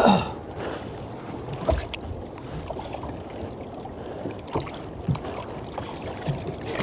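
Water sloshing and lapping around a small fishing boat at sea, with a few faint knocks.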